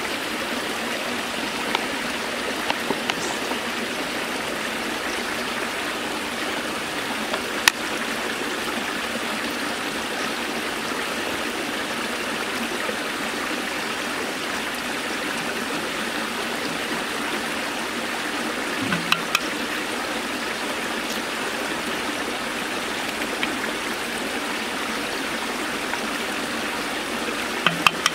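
Steady rush of water pouring from small outlets into a shallow canal, with a few sharp clicks and taps scattered through, the loudest about eight seconds in.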